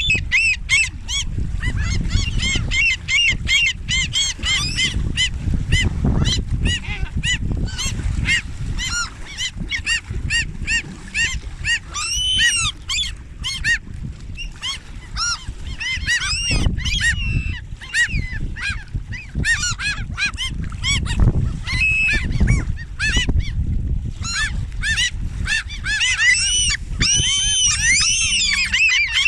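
A large flock of birds being fed, calling constantly with many short, high calls overlapping each other without a pause. Under the calls runs a low rumble of wind on the microphone.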